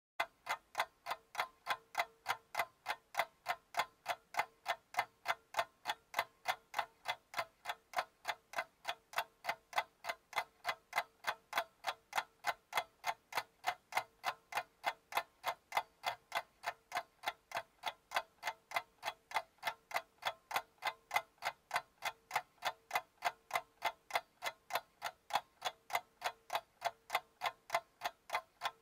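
Clock ticking, a steady, even tick about three times a second throughout.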